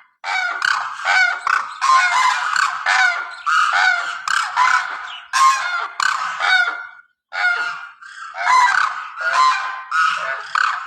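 A flock of geese honking, many calls overlapping almost without a break, with a brief pause about seven seconds in.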